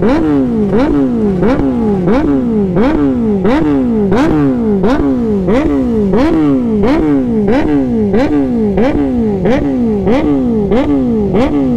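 Electronic siren-style horn, repeating a sharp upward jump followed by a falling glide about twice a second.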